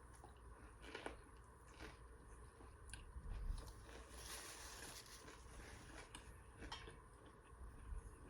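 Faint chewing and mouth sounds of a person eating, with a few soft scattered clicks and a brief swell of noise midway.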